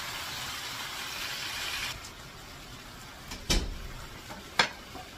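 Squid frying in a pan with a steady sizzle that drops off sharply about two seconds in. Later come two sharp knocks about a second apart, the second the loudest.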